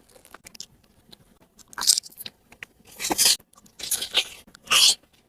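Close-up crunchy bites and chewing of an onigiri rice ball: a few short, crisp crunches separated by quiet gaps.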